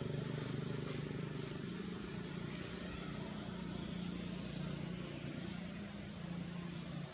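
A steady low engine drone, like a motor vehicle running some way off, slowly fading. A few faint high chirps sound over it early on.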